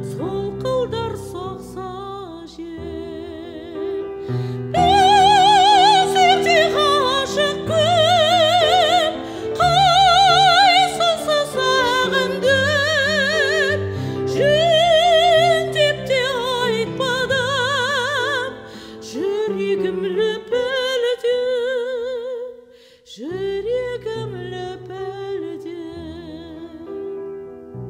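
A classically trained high female voice sings a song with wide vibrato over sustained instrumental accompaniment. The voice pauses briefly near the end, then comes back in.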